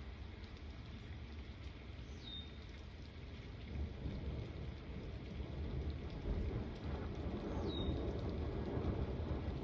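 Steady rain with thunder rumbling in low and growing louder from about four seconds in. A bird gives a short, high, falling whistle twice.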